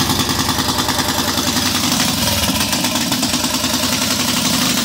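Duromax 440cc single-cylinder engine on a go-kart, running steadily at its first startup after being fitted with a performance cam and a Mikuni 36mm flat-slide carburettor.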